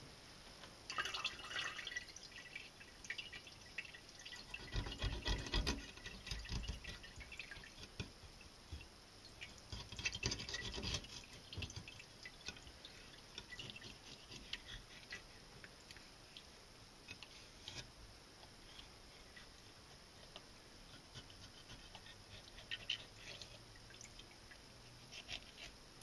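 Kitchen knife cutting the rib bones away from a largemouth bass fillet on a cutting board: quiet scraping and small clicks, with louder bouts of scraping and a few knocks about 5 and 10 seconds in.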